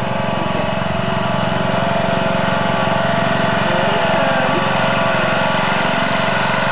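Riding lawn mower engine running steadily, a little louder over the first few seconds.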